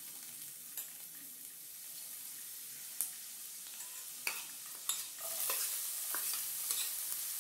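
Finely chopped garlic sizzling in hot oil in a nonstick pan, with a few light clicks of the spoon against the pan. The sizzle grows louder about five seconds in, as more garlic goes in.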